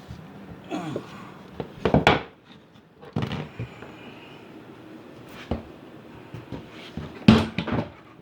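Several separate clunks and knocks, with some scraping, from handling a lawn mower's metal blade, tools and a wooden wedge. The loudest knock comes near the end.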